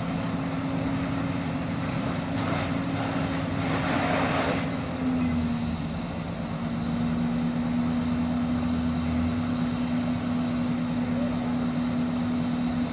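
Fire engine's engine running steadily, its pitch shifting down slightly about five seconds in. A rushing hiss joins it for a couple of seconds, ending about five seconds in.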